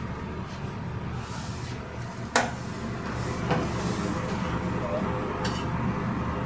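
Kitchen clatter over a steady low machinery hum: a few sharp clinks of metal utensils and dishes, the loudest about two and a half seconds in.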